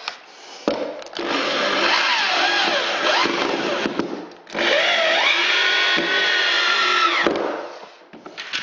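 Electric drill driving an 80 mm self-tapping screw into a wooden floorboard, running in two bursts of about three seconds each with a short stop between them. Its motor whine wavers in pitch as the screw is sunk a few millimetres below the board's surface to stop the floor squeaking.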